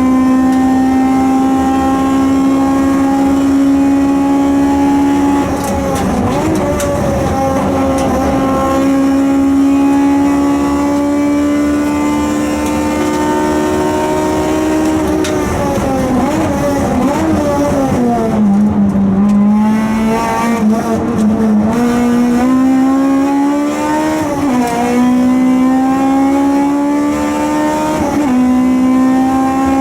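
Honda K20A 2.0-litre VTEC four-cylinder engine of a CL7 Accord Euro-R pulling hard at high revs, its note held high and slowly climbing, dropping for gearshifts and falling lowest for a braking stretch around the middle before climbing again. The engine runs with an exhaust leak.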